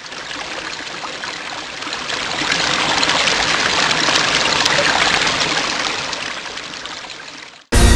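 Sound effect of running, trickling water for a liquid logo animation, swelling up and then fading away. Near the end it is cut off by a sudden loud hit as music starts.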